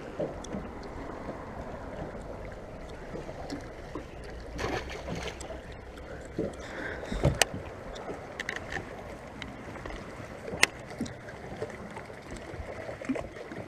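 Water lapping against a fishing boat's hull, with scattered small clicks and a few sharp knocks; the loudest knocks come about seven and ten and a half seconds in.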